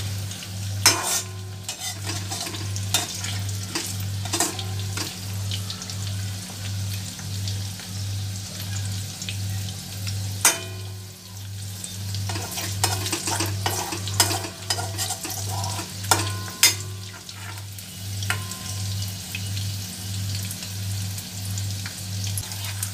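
Battered okra strips deep-frying in hot oil in an iron kadai, sizzling steadily, with sharp scrapes and clinks now and then as a perforated steel spatula turns them against the pan. A low hum pulses regularly underneath.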